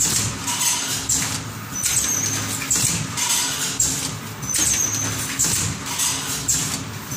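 Automatic counting and bagging machine running through its cycle, with a regular rhythm of short hisses and clacks and a brief high squeal about every two and a half seconds.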